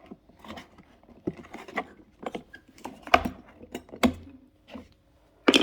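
Small metal T-top latch parts being handled and pulled apart: irregular clicks, taps and light scrapes, with sharper knocks about three and four seconds in and again just before the end.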